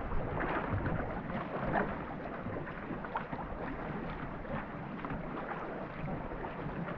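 Tandem marathon racing canoe being paddled at race pace: paddle blades catching and splashing in the river water, in an uneven run of strokes.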